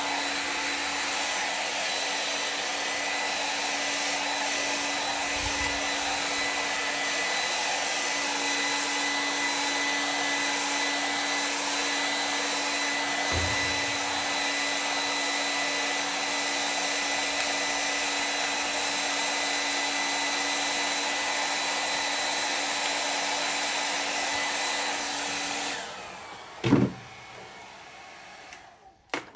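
Heat gun running steadily, a fan-driven blowing noise with a constant hum and whine, switched off about 26 seconds in. A couple of short knocks follow near the end.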